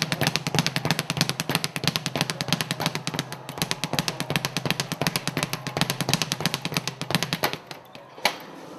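A speed bag being punched with gloved fists in a rapid, even drumming rhythm, several hits a second as it rebounds off the platform. The drumming stops about a second before the end, and one last hit follows.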